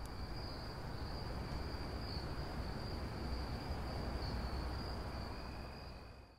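Crickets trilling in a steady, high, unbroken chorus, with a fainter lower note and a low rumble underneath; it fades out near the end.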